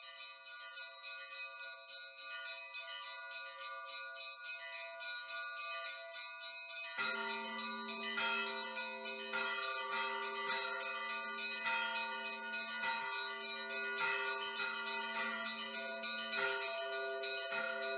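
Church bells ringing: quick repeated strikes on high bells with long ringing tones. About seven seconds in, deeper bells join and the ringing grows louder.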